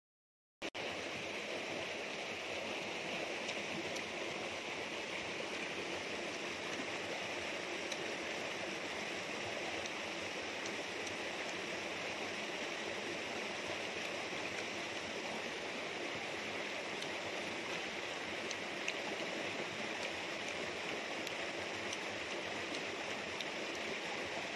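A shallow rocky stream rushing over stones in small rapids, a steady, even water noise. It cuts in suddenly after a moment of silence about half a second in.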